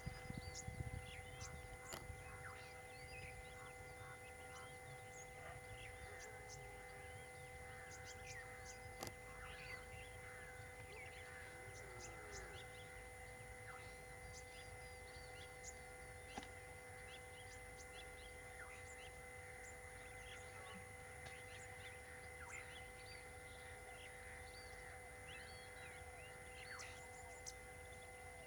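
Faint chorus of scattered bird chirps and calls over a steady low rumble, with a few soft clicks.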